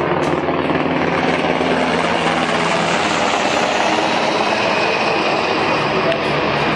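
Helicopter flying nearby, its rotor and turbine making a steady, loud noise.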